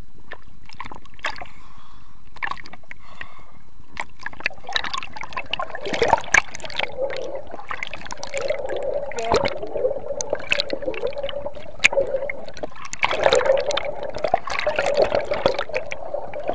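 Water rushing and bubbling around a submerged GoPro as the water skier is towed through the lake. It is muffled and even for the first few seconds, then from about four seconds in it turns into busy gurgling with many sharp splashes.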